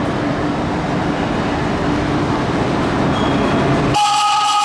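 Vintage BMT Standard subway train rolling into an underground station with a steady rumble of wheels on rail. About four seconds in, a high-pitched squeal of several steady tones sets in.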